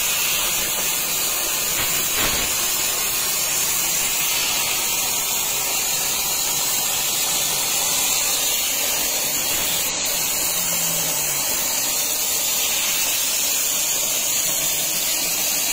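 Plasma cutting torch on a homemade CNC plasma table cutting through steel sheet: the arc and its air jet make a steady hiss.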